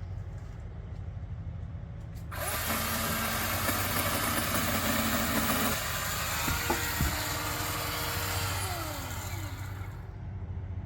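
Ryobi 12-inch chainsaw switched on about two seconds in and running as it cuts into a tree limb, then winding down near the end with a falling pitch.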